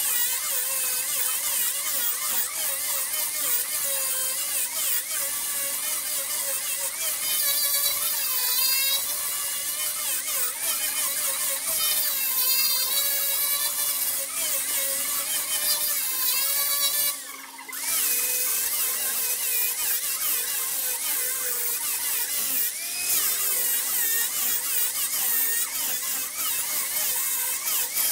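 Wood lathe spinning a workpiece while a turning tool cuts it, giving a continuous high, wavering whine and scraping hiss. It breaks off briefly about two-thirds of the way through, then carries on.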